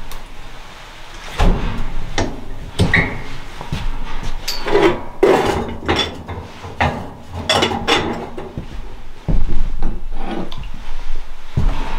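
Irregular knocks, clatter and rubbing of wooden things being handled.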